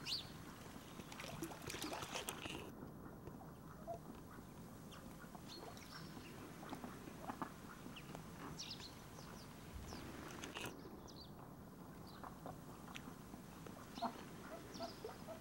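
Mallards and domestic ducks on the water calling quietly, with scattered short calls and small clicks over a faint steady background.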